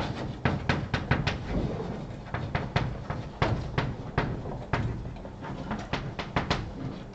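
Chalk on a blackboard while someone writes: an irregular run of short, sharp taps and scrapes, several a second.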